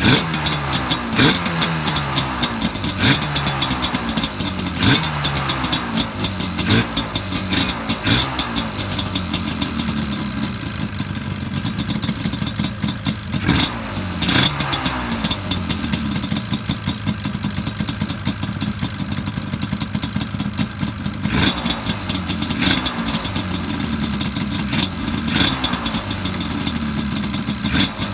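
Yamaha Banshee 350's parallel-twin two-stroke engine, bored .030 over and running pod filters and aftermarket dual pipes, idling while it warms up after a cold start following months of sitting. The throttle is blipped again and again, each time the revs falling back to idle: every second or two at first, then only now and then.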